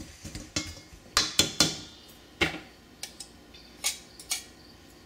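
Metal pastry cutter clinking and scraping against a stainless steel mixing bowl while cold margarine is cut into flour: a string of irregular sharp clanks, the loudest a little over a second in.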